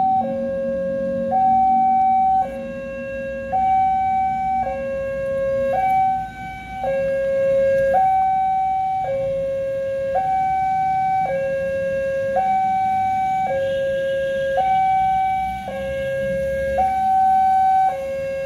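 Railway level-crossing warning alarm sounding a two-tone hi-lo signal, switching between a higher and a lower tone about once a second, to warn of an approaching train while the barriers are down.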